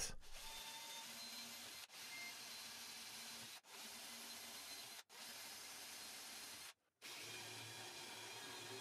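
Bosch cordless drill boring into plywood through a 3D-printed template, faint and steady, broken by four brief drops to silence.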